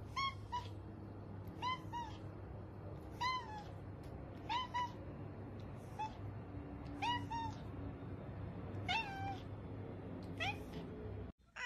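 Domestic cat meowing repeatedly: about eight short meows, roughly one every second and a half, several of them in two quick notes, over a steady low hum.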